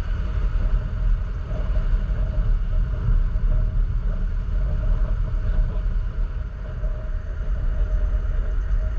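Can-Am Outlander 1000 ATV's V-twin engine running steadily under way, with a heavy low rumble of wind on the microphone.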